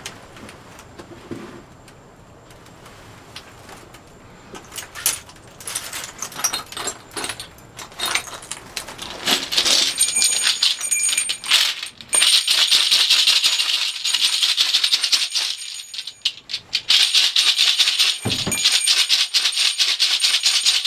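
A hand rattle shaken, starting as scattered clicks and building about ten seconds in into fast, continuous shaking, with a thin high ringing tone along with it. The shaking drops out briefly near the end, then resumes.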